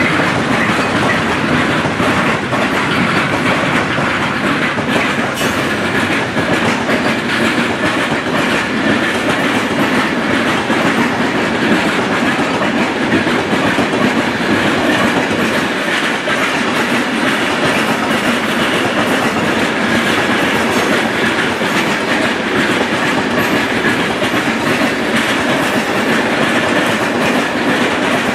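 Freight train of bogie flat wagons rolling steadily past: a continuous wheel-on-rail rumble with rapid clickety-clack over the rail joints.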